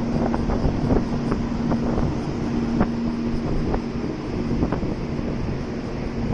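Gusty typhoon wind buffeting the microphone, with a steady low hum underneath and a few faint ticks.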